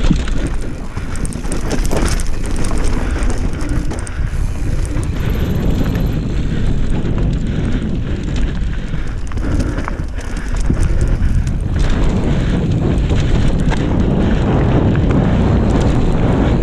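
Cube Stereo 150 full-suspension mountain bike descending a rocky dirt trail at speed: wind buffets the action camera's microphone while the tyres crunch over loose stones and the bike rattles, with many sharp knocks.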